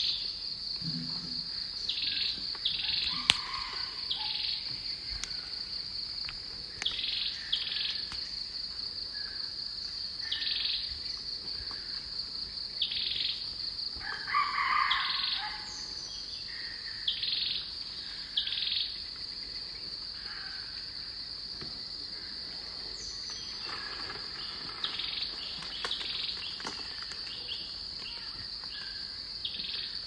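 A steady, high-pitched insect drone, with birds giving short calls every second or two and a louder call about halfway through.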